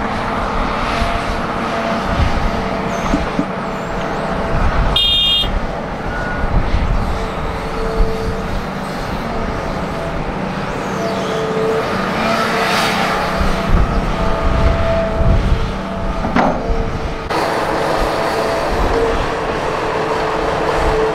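Heavy diesel engines running steadily: a Hitachi Zaxis 350H excavator working as it loads dirt, and the idling dump truck beside it. Steady whining tones sit over the engine rumble.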